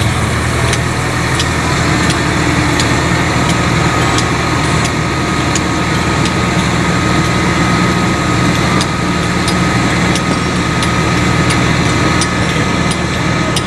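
Sumitomo hydraulic excavator's diesel engine running steadily at work, with a steady high whine over it and scattered sharp clicks.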